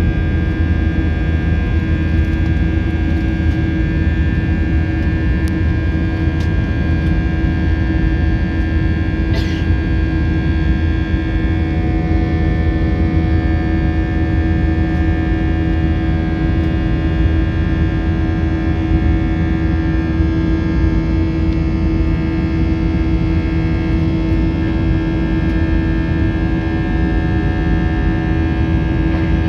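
An Airbus A321's IAE V2500 turbofan engine heard from inside the cabin as the plane climbs out after takeoff. It makes a steady, loud drone: a deep hum with several constant tones over it.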